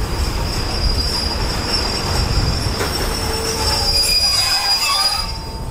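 Passenger coaches of a Thai diesel-hauled train rolling slowly into a station platform, their steel wheels giving a steady high squeal over a low rumble. The squeal fades away near the end as the train comes to a stand.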